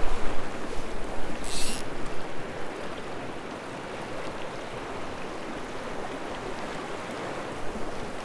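River current running, a steady rushing hiss, louder with some low rumble in the first couple of seconds, with one brief high hiss about one and a half seconds in.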